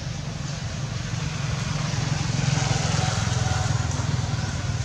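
Road traffic: a motor vehicle's engine rumble passing, a little louder around the middle.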